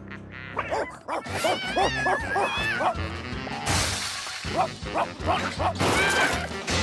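Big cartoon dog barking in quick repeated barks over lively background music, with a crash about four seconds in.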